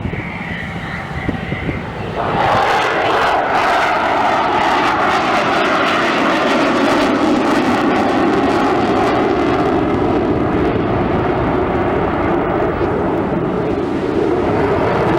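Loud aircraft engine noise from a display aircraft in flight. It jumps up sharply about two seconds in and then holds steady.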